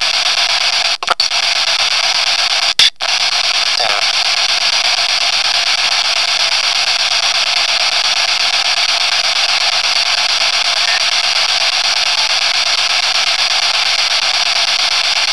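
Loud, steady hiss of static noise that cuts out briefly about one second in and again about three seconds in.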